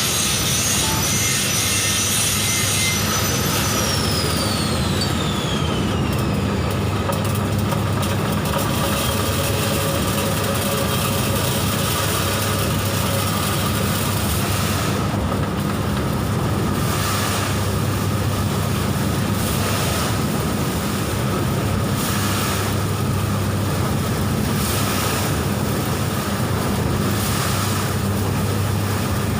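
Grain and crop dryer with an automatic stirrer running: a steady mechanical rush of blower and motor noise with a low hum, and a high whine that falls in pitch a few seconds in.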